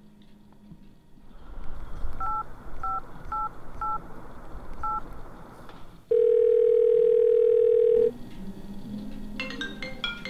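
Phone call being placed: five quick two-note keypad beeps as a number is dialled, then a steady two-second ringback tone on the line. A short run of bright chiming notes follows near the end.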